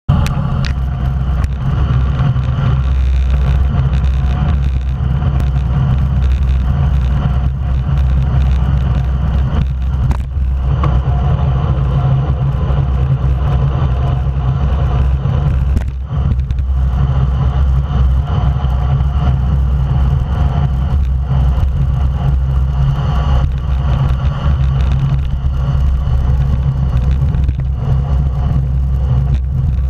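Steady wind rumble on the microphone of a camera riding on a racing road bike, mixed with tyre and road noise, running without letup.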